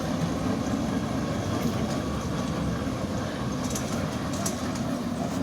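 Steady rumbling running noise of a children's train in motion.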